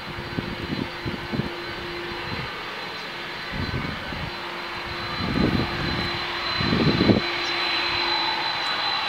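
Jet airliner engines running with a steady rush and a thin high whine that grows stronger over the last couple of seconds. Several low thumps come through underneath.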